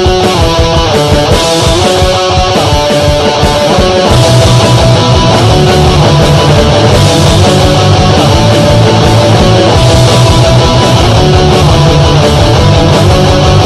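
Punk rock backing track with distorted electric guitar and drums, programmed in the Punk-O-Matic online music maker. About four seconds in the low guitar and bass part gets heavier and louder.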